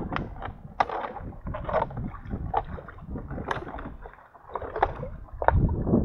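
A plastic-bottle minnow trap being rinsed by hand in river water: irregular splashing and sloshing, with a short lull a little after four seconds.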